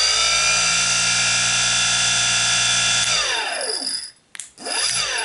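Bosch Rotak cordless lawnmower motor, running free with no blade on its shaft. It spins up with a rising whine, runs steadily for about three seconds, then winds down as the whine falls away. A click follows near the end.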